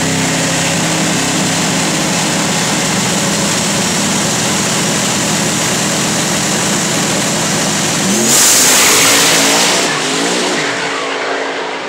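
Two drag-racing cars' engines running steadily at the starting line, then about eight seconds in both launch at full throttle in a sudden loud burst of engine noise that fades as they race away down the strip.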